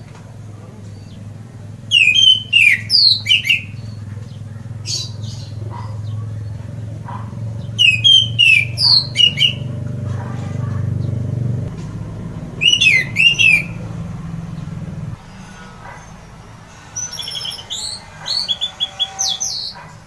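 Orange-headed thrush (anis merah) singing its loud full song (ngeplong): four bursts of quick whistled phrases a few seconds apart, the last a faster run of high notes near the end. A low hum runs underneath and stops about three-quarters of the way through.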